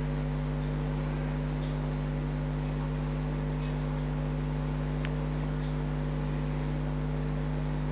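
A steady, even machine hum made of several fixed low tones, with one faint tick about five seconds in.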